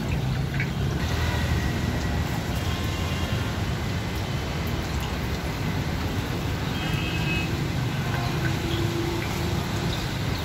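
Bread pakoras deep-frying in hot oil in an iron kadhai, the oil sizzling over a gas burner with a steady low rumble.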